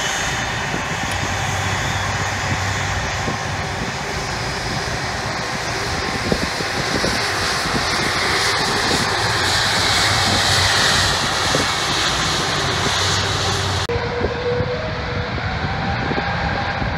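Airbus A330-200 jet engines running at taxi power as the airliner rolls past close by: a steady rushing noise with a faint whine, loudest about two-thirds in. The sound changes abruptly near the end.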